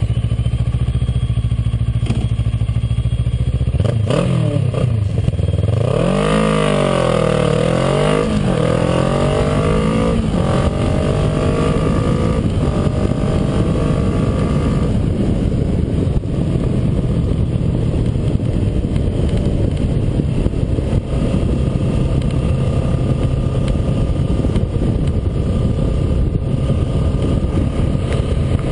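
A 2010 Kawasaki ER-6N's 649cc parallel-twin engine idles just after starting. About four seconds in it revs up as the bike pulls away hard, the pitch climbing and dropping back several times as it shifts up through the gears, then settles into a steady drone at speed.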